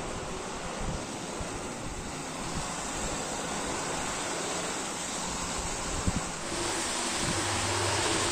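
Hornby R695 Intercity 125 OO-gauge model train running on its track: a steady rolling rumble of motor and wheels with a few clicks. It grows louder, with a low hum, about six and a half seconds in.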